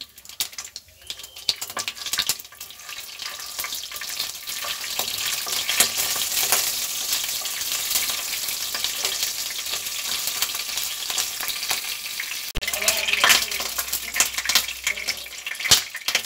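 Cumin seeds sizzling in hot oil in a non-stick kadhai, the first stage of a tadka, while a wooden spatula stirs them. The sizzle swells over the first few seconds and then holds steady, with a couple of sharp knocks near the end.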